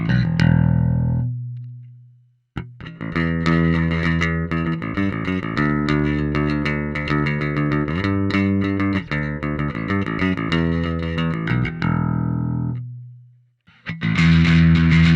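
Electric bass played through a GUMA Drive overdrive pedal, a CMOS-based clone of the Darkglass Microtubes B3K, into an Ampeg SVT amp profile. The first note rings out and fades. A run of plucked notes follows and ends on a held note that fades out. Near the end a louder, brighter phrase comes in.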